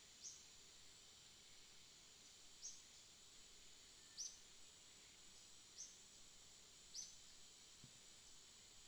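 Near silence: a faint steady hiss, with five short, faint, high-pitched chirps or scratches at irregular intervals of one to two and a half seconds, and a soft low thud near the end.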